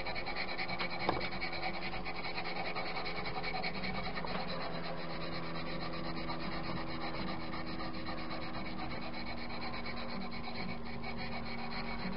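Walnut tool handle being hand-sanded with sanding mesh: a steady, continuous back-and-forth rubbing.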